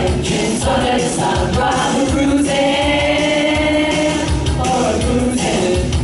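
A group of voices singing a song together, holding long notes over a band accompaniment with a steady beat.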